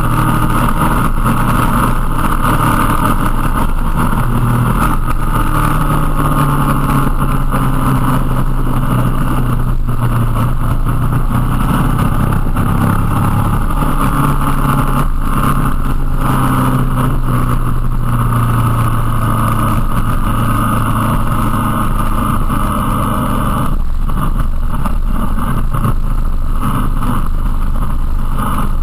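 Motorcycle engine running under way with wind rushing past the microphone; the engine note shifts in pitch a few times with throttle and gear changes, and eases off near the end as the bike slows.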